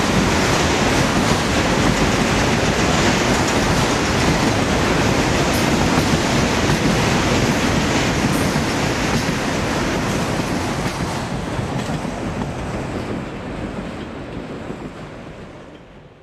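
Freight train of enclosed autorack cars rolling past, a steady rumble and clatter of steel wheels on the rails. The sound dies away over the last few seconds as the end of the train passes and recedes.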